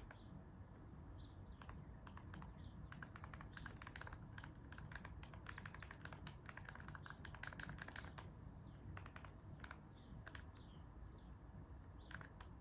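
Faint, rapid, irregular clicking of buttons being pressed as a search is typed in letter by letter, densest in the middle, with a few short high chirps between the clicks.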